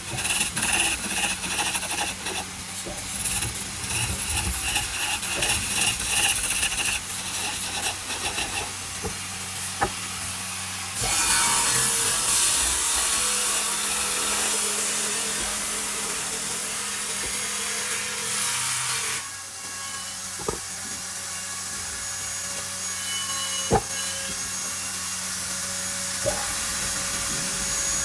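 A power tool working wood. For the first ten seconds or so it makes a fast, rhythmic scraping. About eleven seconds in it changes to a steady motor hum with a loud, even hiss of cutting or sanding, which eases off a little later.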